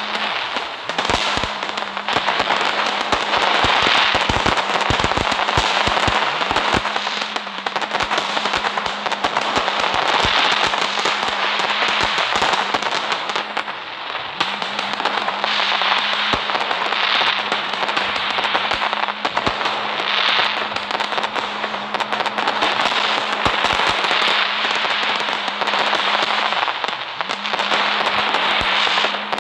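Fireworks crackling continuously: a dense, rapid run of sharp pops over a steady hiss. It swells and eases every few seconds.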